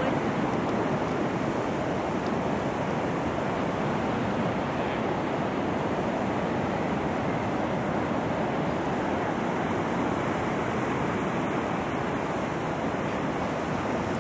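Steady ocean surf washing on the beach, mixed with wind noise on the microphone.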